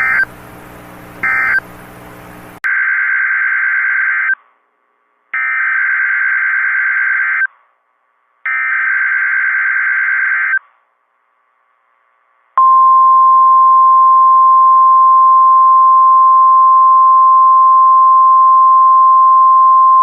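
NOAA Weather Radio emergency alert signalling. First two short buzzy end-of-message data bursts, then three buzzy SAME header data bursts of about two seconds each with short gaps between them. From about twelve seconds in comes the steady, loud 1050 Hz weather radio alert tone, which marks the start of a new alert.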